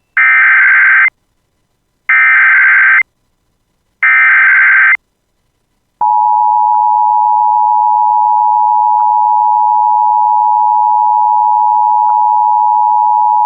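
Emergency Alert System SAME header: three identical one-second bursts of screeching digital data, two seconds apart, marking the start of a new alert. About six seconds in, the steady two-tone EAS attention signal (853 and 960 Hz together) begins and holds unchanged.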